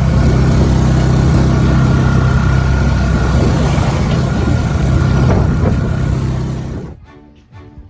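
Steady motor vehicle engine and road noise, cutting off abruptly about seven seconds in as soft music takes over.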